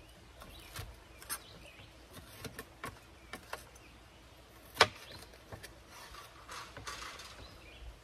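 Chef's knife slicing a red bell pepper on a cutting board: scattered light taps of the blade striking the board at uneven intervals, with one sharper knock about five seconds in.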